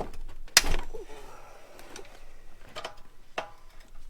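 Metal hand tools clinking and rattling as Allen wrenches are handled, with one loud clank about half a second in and a few lighter clicks later.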